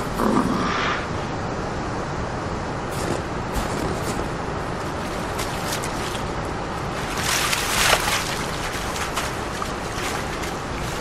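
Waves and sloshing water, with a louder splash about seven and a half seconds in as a large animal plunges into the water.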